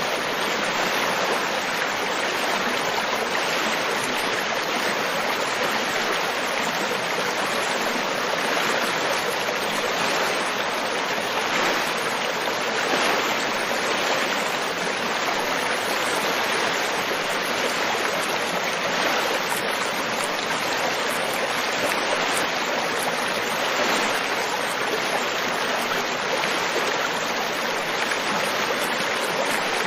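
River water flowing and splashing over rocks in a steady rush, without a break.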